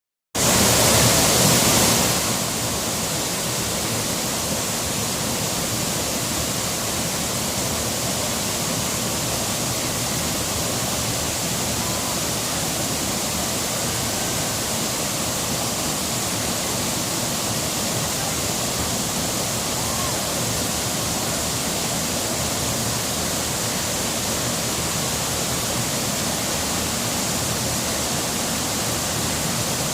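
Waterfall rushing: a steady, even roar of falling water, a little louder for the first two seconds or so.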